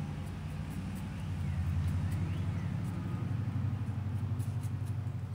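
A nursing mother cat purring steadily, a low, rapidly pulsing rumble close to the microphone.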